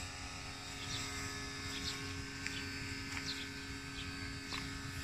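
A steady electrical-sounding hum over a low rumble, with short, downward-sliding bird chirps repeating every second or so.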